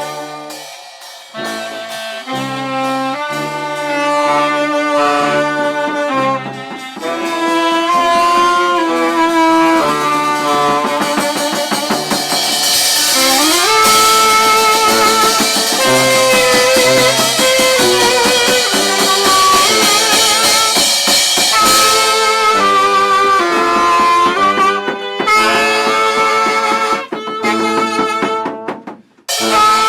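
Horn band of saxophones and brass playing a melody in short notes over a drum kit, with a rising slide around the middle. The band stops for a moment just before the end, then comes back in.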